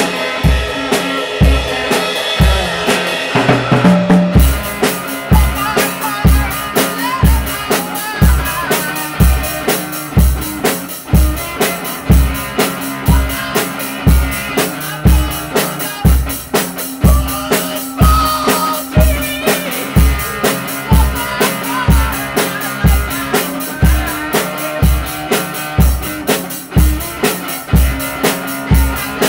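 Rock music with a steady drum-kit beat of kick and snare. The cymbals and bright high end come in about four seconds in.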